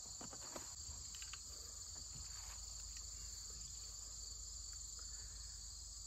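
A steady, high-pitched chorus of crickets and other insects, with a few faint clicks in the first second or so.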